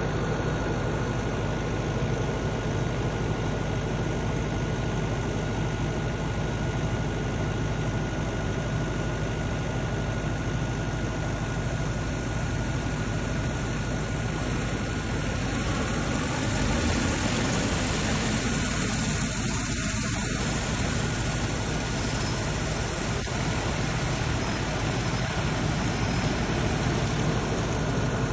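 A motor running steadily, with a constant high whine over a low hum.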